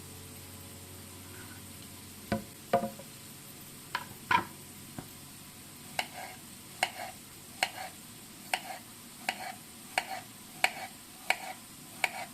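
A spoon clinking against a cup in light, ringing taps, as when stirring. A few taps come unevenly at first, then a steady series of about one tap every three-quarters of a second.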